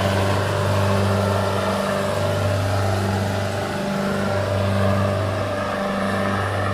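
Diesel engines of a Sonalika tractor and an Arjun tractor running hard under full load as the two tractors pull against each other, hitched back to back. A steady deep drone that wavers slightly.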